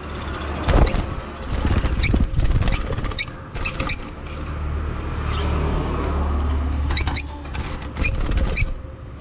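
Lovebirds chirping in short, sharp, high calls, scattered in clusters, over a low rumble that swells in the middle.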